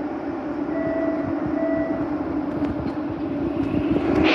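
Boston MBTA Red Line subway train in an underground station: a steady hum with low rumbling, two short beeps about a second in, and louder rushing noise rising near the end as the train gets moving.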